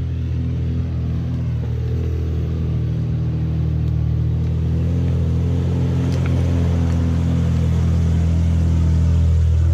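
Four-wheel-drive engine running steadily at low revs, growing a little louder near the end.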